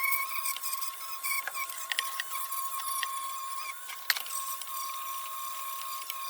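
Small high-speed rotary tool running steadily with an 800-grit nylon abrasive brush bit polishing metal: a constant high whine over a scratchy rasp, with a few sharp ticks where the bit catches.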